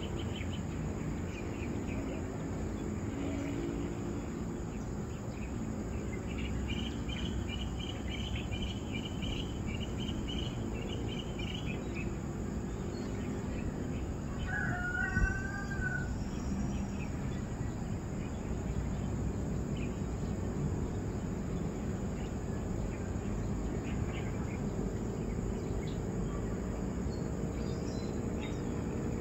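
Insects chirring in fast pulsed trains, strongest for several seconds near the start, over a steady low background noise. About halfway through, a single short wavering bird call stands out.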